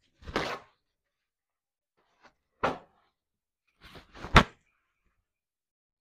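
A few short scraping or rustling noises from handling painting tools, then a sharp tap or knock about four seconds in, the loudest sound; quiet in between.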